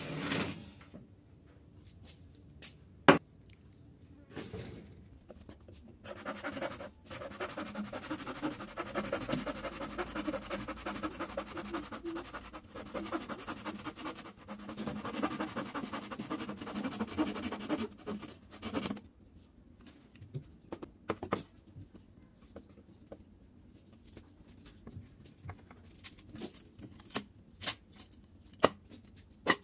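Wooden pallet clattering as it is lifted and set down, then a handsaw cutting through old pallet wood in steady strokes for about thirteen seconds. After the sawing, scattered single hammer knocks on the wood, several in a row near the end.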